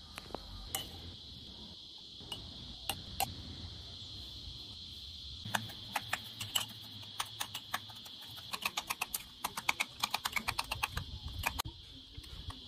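Metal spoon clicking and scraping against a ceramic mug as avocado is mashed with sugar inside it: a few scattered clicks at first, then a quick run of clicks in the second half. A steady high-pitched drone runs underneath.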